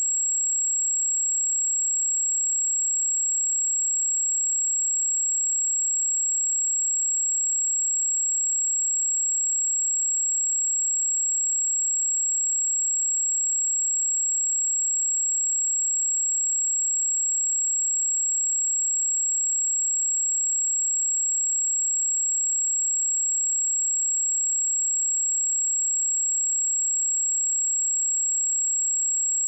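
A steady, high-pitched pure sine-wave test tone at 7633 Hz, held at constant pitch and level.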